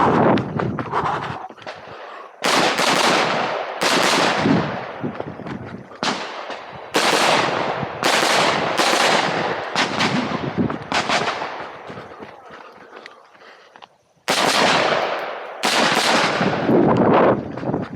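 Semi-automatic competition rifle with a muzzle brake fired about ten times at uneven intervals. Each shot is a sharp crack with a long echo fading behind it. Shots come every second or so, then pause for about three seconds before a last few shots.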